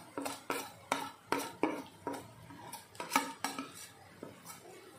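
A spoon clinking and scraping against a plate and the rim of a kadhai as powdered spices are knocked into the pan. The sharp clinks come irregularly, about two or three a second, the loudest a little past three seconds in, and thin out near the end.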